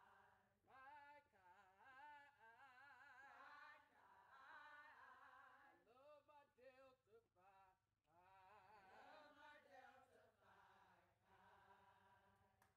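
Faint women's voices singing together, a melodic chant in phrases broken by short pauses.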